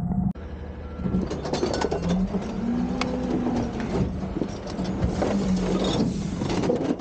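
Garbage truck engine running, rising in pitch for a while as it works the lift, with repeated knocks and clatter from trash bins being dumped.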